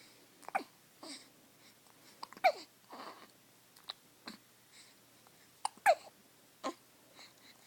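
Newborn baby hiccupping irregularly, about five or six times. Each hiccup is a short catch with a little voice in it that drops in pitch, the loudest about two and a half seconds in and two close together near six seconds, with softer breaths between.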